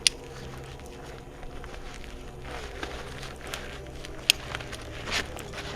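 Two sharp clicks about four seconds apart, with softer rustling and crackling between them, over a steady low rumble.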